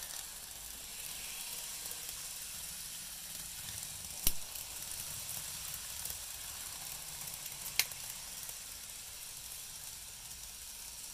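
N-scale model train running along the track, a steady high-pitched hiss of wheels and motor that fades toward the end as the train moves off. Two sharp clicks cut through it, about three and a half seconds apart.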